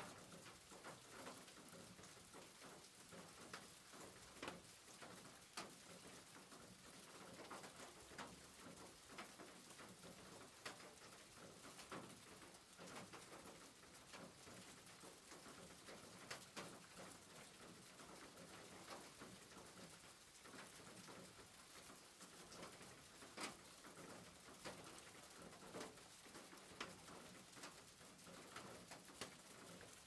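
Faint, steady rain, with many separate drops tapping and splashing on a wet deck at irregular moments.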